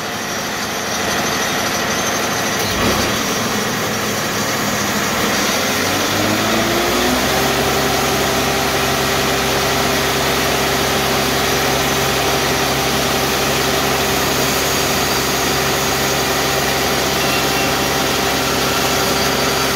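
TimberKing 2220 portable bandsaw mill's engine running at idle, then revving up smoothly about five seconds in and holding steady at full cutting speed.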